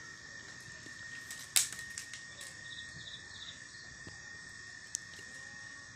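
Faint, steady insect trilling in the background. A light click comes about a second and a half in and another near the end, as stiff plastic wire strands are handled and knotted.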